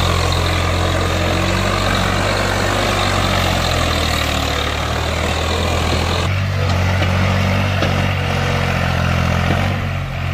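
Tractor diesel engines working hard while pulling a fully loaded trolley. The engine sound changes abruptly about six seconds in, as one engine gives way to another.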